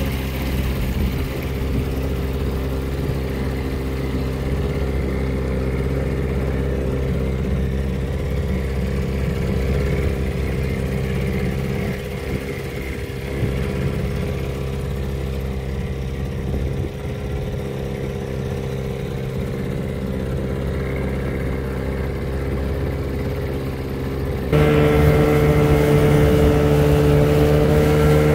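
1982 Evinrude 15 hp two-cylinder two-stroke outboard motor running steadily at low speed, pushing an inflatable dinghy. Near the end it abruptly gets louder and higher-pitched.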